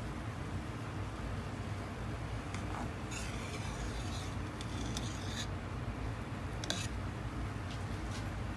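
A stainless pot of fish bones and kelp bubbling steadily at a rolling boil, with a few short scrapes and clinks of a metal ladle against the pot as the scum is skimmed off the stock.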